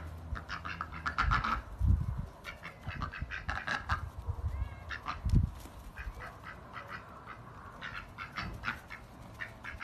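White domestic ducks quacking in quick runs of short, repeated calls that come and go, with a couple of dull low thumps about two and five seconds in.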